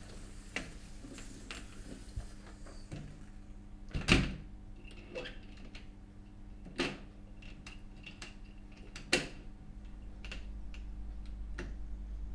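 A door being opened and shut, the shut about four seconds in being the loudest knock, followed by a few fainter knocks every two or three seconds over a low steady hum.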